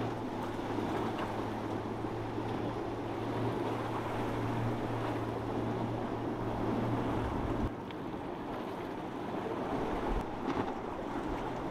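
Outboard motor on a small skiff running at planing speed, a steady drone over splashing water, surf and wind on the microphone. The engine drone cuts off abruptly about eight seconds in, leaving wind and surf.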